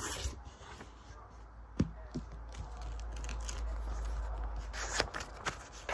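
A sheet of paper being picked up and handled, rustling, with a sharp tap about two seconds in and another about five seconds in.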